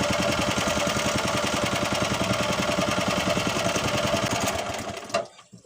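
Honda GX120 single-cylinder four-stroke engine driving a longtail boat propeller, running hard with a fast, even firing beat. It fades slightly and then cuts off suddenly with a short click about five seconds in.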